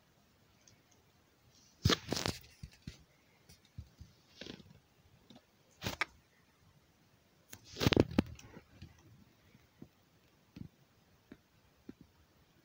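A few scattered clicks and knocks over a quiet background, the loudest about two, six and eight seconds in, with fainter ticks between.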